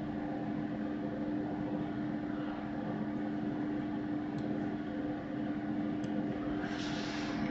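Steady low background hum with two steady pitches and a hiss over it, like a machine running in the room. Two faint clicks come about halfway through, and a short hiss rises near the end.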